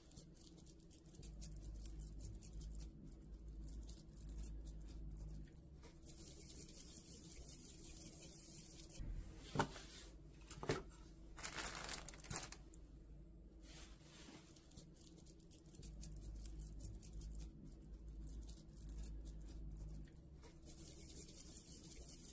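Silver full-metal rooster-chain fidget toy clicking and rattling as it is worked in the hand, with a clear plastic bag crinkling as it is handled over its metal tin case. Two sharper clicks come about halfway through.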